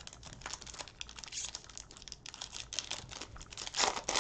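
Cellophane wrapper of a Panini Prizm basketball card cello pack crinkling as it is torn open and peeled off the cards by hand, in a steady run of small crackles with a louder rustle near the end.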